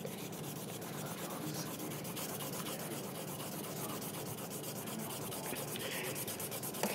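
Purple Sharpie marker scribbling back and forth over paper, a steady scratchy rubbing as the paper is coloured in.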